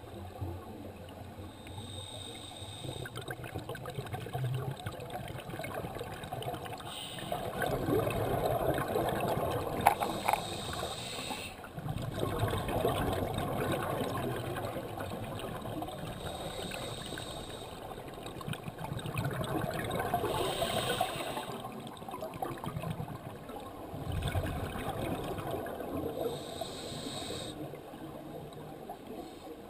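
Underwater sound of a scuba diver's regulator breathing, with bursts of exhaled bubbles gurgling every four to six seconds over a steady rushing.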